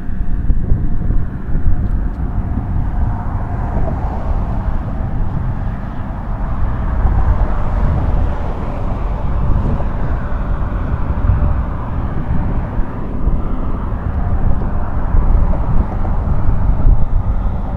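Jet airliner passing overhead: a steady, loud low rumble with a faint hum that sinks slightly in pitch over the first few seconds.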